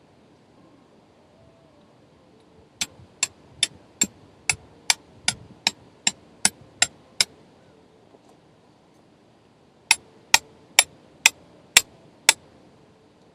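Two runs of sharp, evenly spaced clicks: about a dozen at roughly two and a half a second, then after a pause six more at about two a second.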